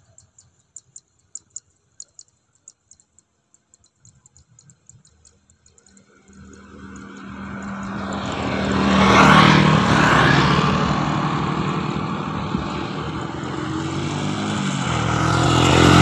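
Motor scooters and a motorcycle riding along a concrete road towards the microphone and passing close by, their engines running. Near silence with a few faint ticks at first, then the engine sound builds from about six seconds in, is loudest around nine to ten seconds, and swells again at the end as a motorcycle passes right beside the microphone.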